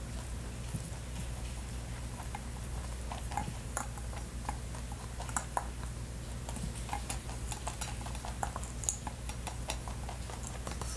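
A rabbit nosing through plastic Easter eggs and eating from them: scattered light clicks and taps, irregular, over a steady low hum.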